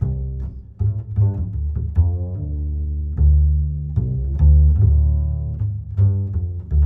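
Instrumental background music carried by low string notes, a bass line of held and plucked notes that change pitch every half second or so.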